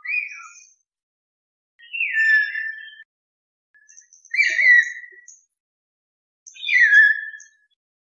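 Hill mynas giving loud whistled calls, four times about two seconds apart; each call slides down in pitch and ends on a short held note.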